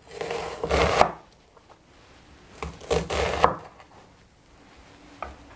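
A kitchen knife slicing through an onion on a wooden cutting board: two crunchy cuts, each ending in a sharp knock of the blade on the board, then a light tap near the end.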